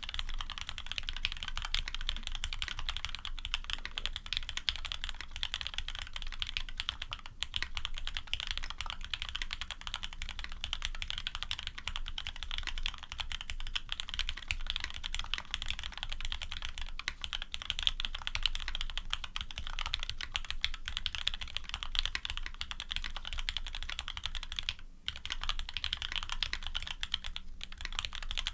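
Continuous fast typing on a Serratus custom mechanical keyboard with lubed Cherry-top/H1 frankenswitches, an aluminium plate and GMK keycaps: a dense stream of keystroke clacks, with a short break about 25 seconds in.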